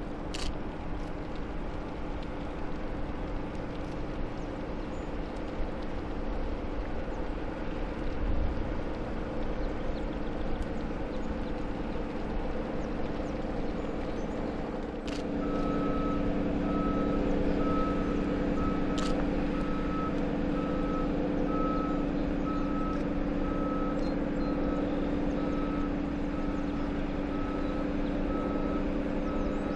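Steady low engine hum from a passing Great Lakes self-unloading bulk freighter, growing louder about halfway through as the ship's stern and engine house draw level. From then on an electronic warning beeper sounds about once a second.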